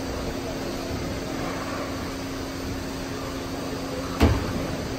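Ice rink ambience: a steady hum of air handling and machinery, with one sharp bang about four seconds in.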